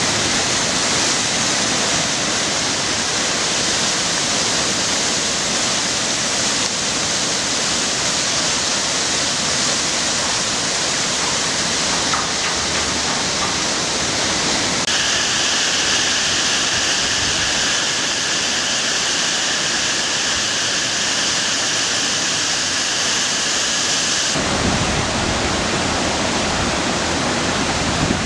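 Rushing floodwater in a normally dry desert riverbed running high after heavy rain: a loud, steady rushing noise. About halfway through, a faint steady whistle-like tone joins it for several seconds, and near the end a low rumble rises, like wind on the microphone.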